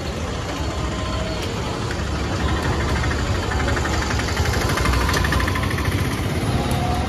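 A motor engine running steadily amid busy street noise, growing a little louder about two-thirds of the way through.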